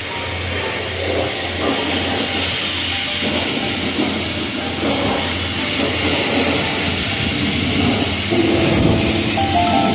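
Pressure-washer wand spraying water onto a dump trailer's tyres and fender: a steady hissing spray. Music with held tones comes in about eight seconds in.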